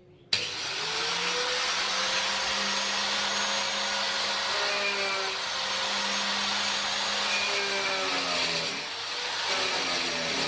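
Electric angle grinder running steadily, starting abruptly about a third of a second in, its motor pitch wavering and sagging a few times.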